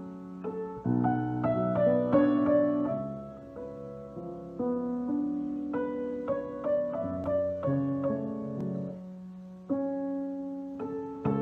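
Background piano music: notes and chords struck and left to ring.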